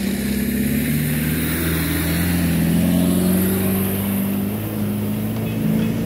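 Engine of a Land Rover Defender 4x4 pulling steadily as it drives past and climbs a rough dirt track. It grows louder as the vehicle approaches and goes by about three seconds in, then holds as the vehicle moves up the track.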